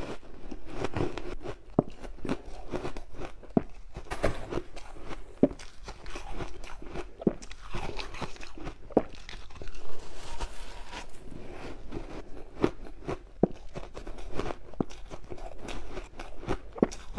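Close-up crunching of mouthfuls of granular pink-dyed ice being bitten and chewed, many sharp, irregular crunches in quick succession.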